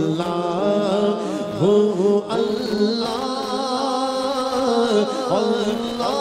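A man singing a naat, an Urdu devotional poem in praise of the Prophet, solo into a microphone, holding long notes that bend and waver in pitch.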